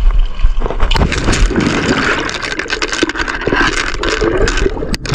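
Seawater splashing and sloshing around a camera held at the surface and dipped under the water. From about a second in there is a dense run of crackles over a low rumble.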